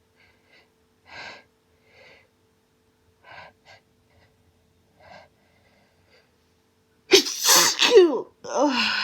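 A woman's faint sniffling breaths, then two loud voiced sneezes close together near the end, from a hay fever attack.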